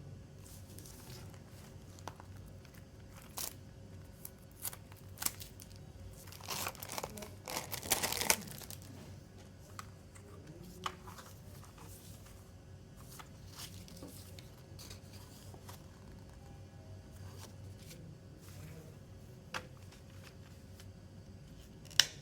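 Packaging of a CD album being torn open and crinkled by hand, the loudest tearing about six to eight seconds in, amid scattered clicks and taps of handling and a sharp click near the end.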